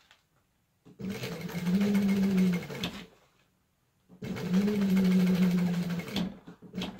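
Sewing machine stitching in two runs of about two seconds each, with a pause between them; its pitch rises a little partway through each run as it picks up speed.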